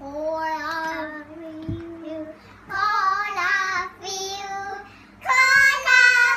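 Young girls singing a short song in four phrases with brief breaths between them, the last phrase the loudest.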